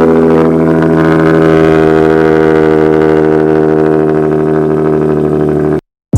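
Car engine running loudly at a steady speed, its pitch held constant, then cut off suddenly near the end.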